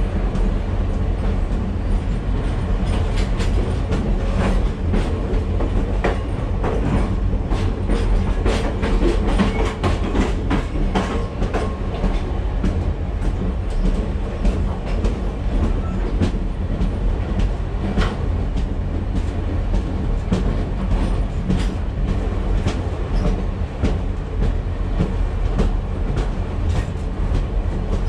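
Railway wheels rolling on track, heard from inside a passenger coach running close alongside a string of covered hopper cars. A steady low rumble is broken by frequent irregular clicks and clanks of wheels over rail joints.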